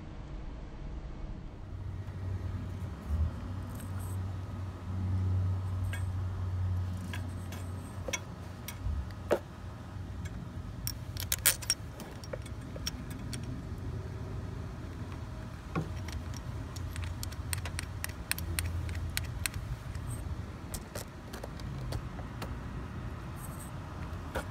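Scattered metallic clicks and clinks of tools and engine hardware being handled, with quick runs of clicks around the middle and again later, over a low rumble.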